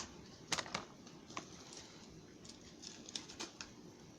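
Faint, scattered crackles and ticks of thin, crisp sheets of roasted seaweed being handled, about seven or eight small clicks at uneven spacing.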